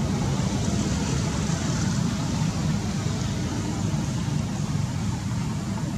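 A steady low rumble with a fainter hiss above it, even throughout, with no distinct calls, knocks or other separate events.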